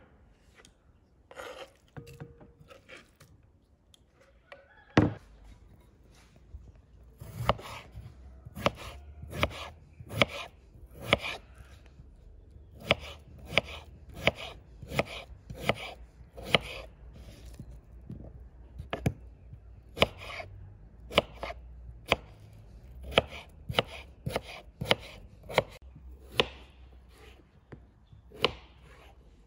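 Kitchen knife cutting on a wooden cutting board, first through raw meat and then chopping a peeled potato into chunks. Each stroke ends in a sharp knock on the board, about one or two a second.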